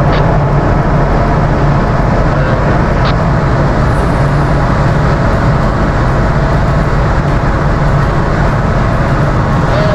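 Ship's engine and machinery running with a steady, loud rumble and a constant low hum.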